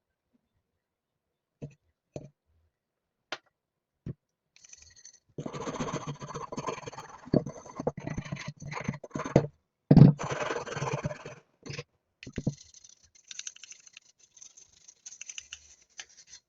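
Scraping and scratching of hard objects being handled, with scattered clicks and knocks and one loud knock about ten seconds in.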